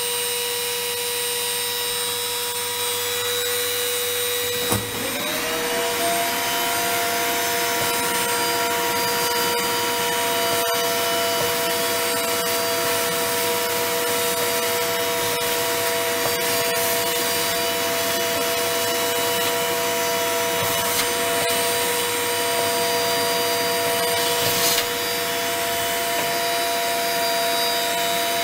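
Vacuum cleaner switched on about five seconds in with a click, its motor rising to a steady whine as it sucks wood dust off a freshly CNC-engraved board, then winding down right at the end. A steadier motor hum runs underneath throughout, with a single light knock near the end.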